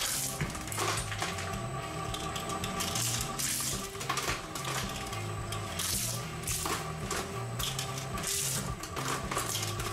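Twin-shaft industrial shredder running, its steel cutter blades chewing small plastic toys, with irregular sharp crunches and cracks over the steady machine hum.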